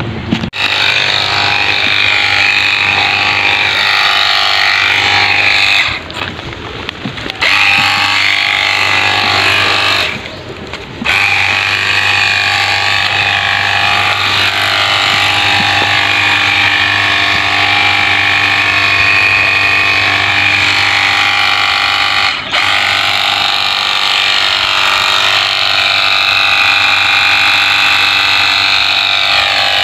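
Cordless battery-powered pressure washer gun running its pump while spraying, a steady whine over a low hum. It cuts out briefly three times: twice in the first third and once more past the middle.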